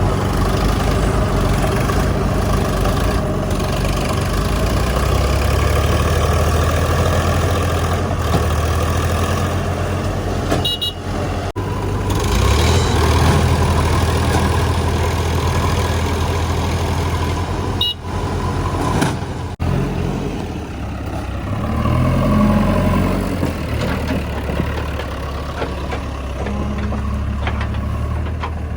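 Heavy diesel engine of a JCB 3DX backhoe loader running at work, its revs rising and easing, louder about a third of the way in and again past two-thirds.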